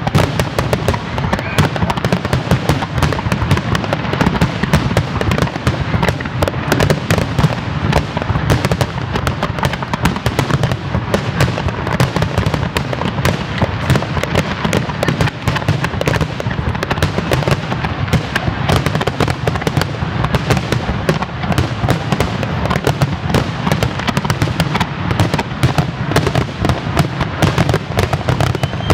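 Fireworks finale: a dense, unbroken barrage of aerial shell bursts and crackles, many reports a second with no pause between them.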